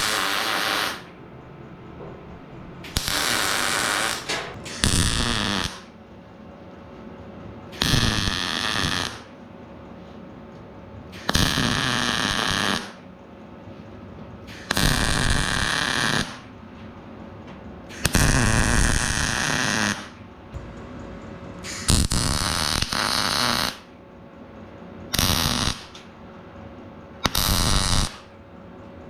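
Electric arc welding laid down in a series of short stitch welds: about ten crackling bursts of one to two seconds each, every few seconds, each starting and stopping abruptly as the arc is struck and broken.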